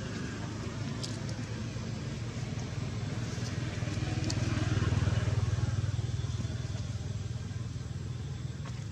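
Low engine rumble of a passing motor vehicle, swelling to its loudest about five seconds in and then fading.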